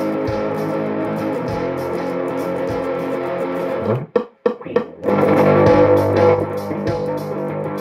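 Electric guitar being played, with sustained notes and chords. The sound drops out for about a second roughly halfway through, then comes back louder.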